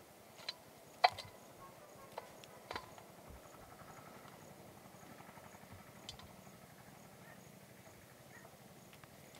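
A few short, sharp clicks and taps, the loudest about a second in, as fingers pluck tiny wild flowers from their stems over a stainless steel bowl. A faint, high tick repeats about twice a second underneath.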